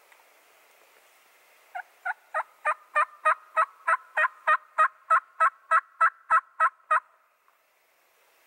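A long series of turkey yelps: about eighteen evenly spaced notes at roughly three a second, each breaking from a higher to a lower pitch. They build louder over the first second, hold steady, and stop about seven seconds in.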